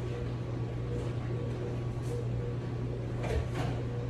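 Room tone: a steady low hum, with a couple of faint knocks about three and a half seconds in.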